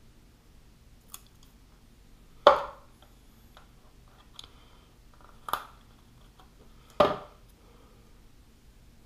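Three sharp knocks, each dying away quickly, with a few faint clicks between them, from handling the forearm armor piece and its Velcro on a work surface.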